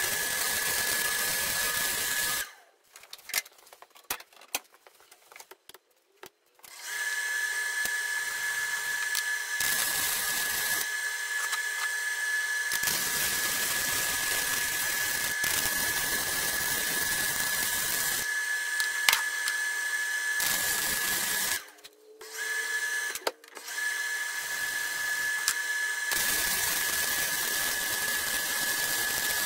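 Arc welding on steel: a steady crackling sizzle with a thin high whine through it. The arc stops about two and a half seconds in for about four seconds, then runs on, breaking off again briefly a little past the two-thirds mark with a short restart in between.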